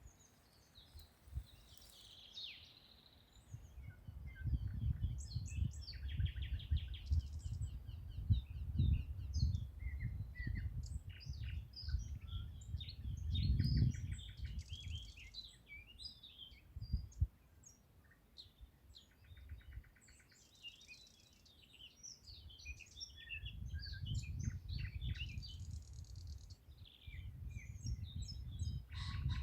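Several songbirds singing at once: overlapping chirps, short calls and rapid trills. A low rumble comes and goes underneath, strongest through the middle and again near the end.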